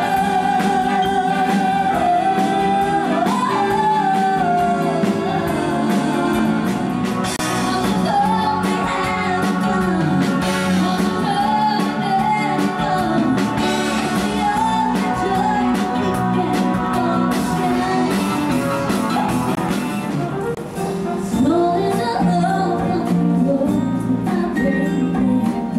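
A woman singing a pop-style song live through a headset microphone, with band accompaniment. The music drops briefly about 21 seconds in, then carries on.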